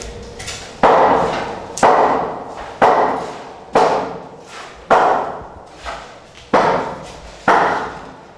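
Heavy hammer blows struck at a steady pace, about one a second, seven in all, each ringing off before the next, with a slightly longer gap about two-thirds of the way through.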